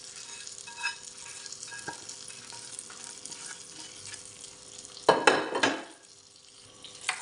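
Hot tadka oil with cumin seeds and curry leaves crackling and sizzling as it is poured and scraped from a nonstick pan onto yogurt with a spatula. About five seconds in there is a louder burst of scraping and clatter.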